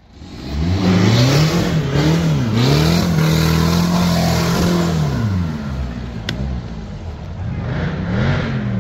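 Off-road trial 4x4's engine revving hard in repeated surges, rising, dipping and rising again as it climbs, with the tyres spinning and flinging mud and leaves.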